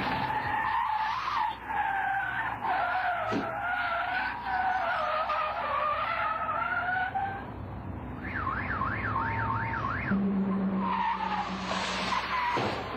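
Car tyres squealing as the cars skid and slide, with a wavering pitch for several seconds. A police siren yelps rapidly up and down for a couple of seconds past the middle, and the tyres squeal again near the end.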